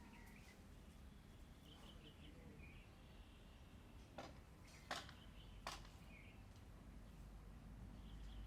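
Faint bird chirps in the background of a near-silent room, with three sharp clicks a little under a second apart about four to six seconds in.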